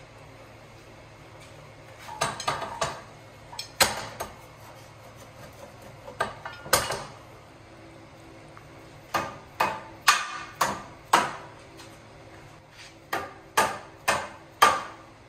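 Mallet blows on a steel hardtail frame section as it is knocked onto a Harley Sportster frame's tubes. A few scattered knocks and clanks come first, then two runs of sharp strikes about two a second in the second half.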